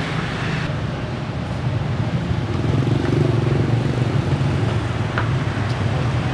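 Street traffic: motorbike and car engines running past, a steady low hum that grows louder about three seconds in and then eases off.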